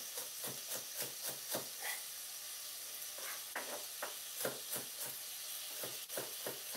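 Knife chopping a bell pepper on a wooden cutting board: sharp knocks several times a second in three quick runs. Under it a steady sizzle of vegetables frying in the pot.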